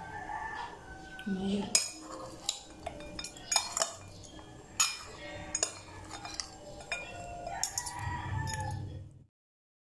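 Metal utensils clinking and scraping against a ceramic plate as chopped grilled pork is tossed and mixed, with sharp, irregular clinks. The sound cuts off to silence near the end.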